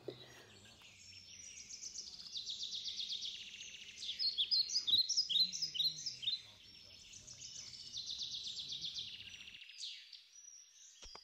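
Small songbirds singing in garden trees: fast trills and repeated high chirps that come and go in bursts. A faint low hum lies under them until near the end.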